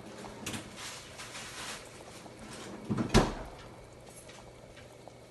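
Kitchen handling sounds: light clatters and scrapes, with a single sharp knock about three seconds in, like a lid, pot or cupboard door being set down or shut.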